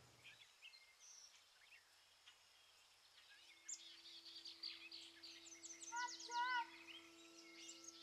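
Faint birdsong: many small birds chirping and twittering, growing busier after about three seconds, with a louder warbling call just past the middle. Soft sustained music notes come in about three seconds in and hold under the birds.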